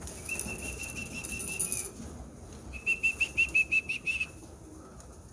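Whistling to call racing pigeons in to the trap: one held note, then a quick run of about eight short pips at the same pitch. Pigeons' wings flap in the first couple of seconds.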